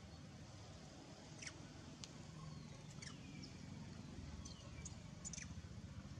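A few faint, high-pitched chirping calls, each a quick downward sweep, scattered over a low steady background rumble.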